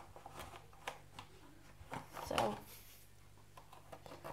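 Scattered light clicks and knocks of household things being handled, with one louder knock-and-rustle about two and a half seconds in.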